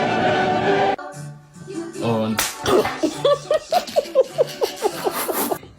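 Choral music stops about a second in. A high voice then makes a quick run of short rising-and-falling syllables, about three a second, with a few sharp clicks among them.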